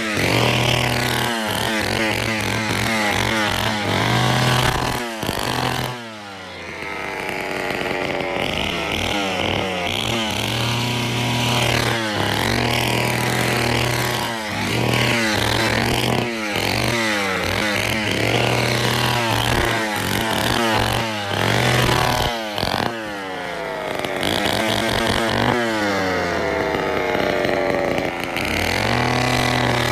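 Poulan 245A two-stroke chainsaw running and being revved up and down over and over, dropping back to a lower speed twice along the way.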